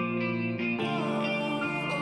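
Background music: a guitar-led instrumental passage.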